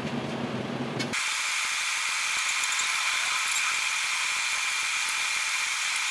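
Chicken and potatoes in sauce sizzling and simmering in a stainless steel wok, a steady hiss with faint scattered pops. In the first second a low hum is heard instead, before the sizzling comes in.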